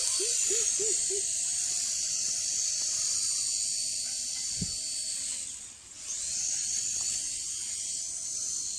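Small toy RC helicopter's electric motors and rotor whirring with a high whine, dropping away briefly about six seconds in before picking up again.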